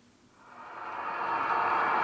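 Model train running noise that fades in about half a second in, grows louder over about a second, then holds as a steady hiss-like rumble.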